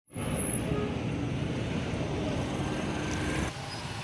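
Road traffic noise, vehicles running and passing; the level drops suddenly about three and a half seconds in.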